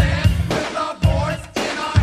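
1980s rap song playing: a drum-machine beat with a heavy kick and bass hit about twice a second, and a wavering melody line above it.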